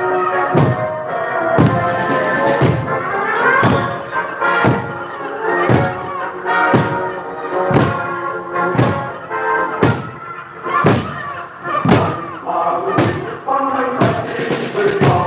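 Korean barrel drums (buk) struck together by a marching drum team, a heavy beat about once a second, over a song playing along.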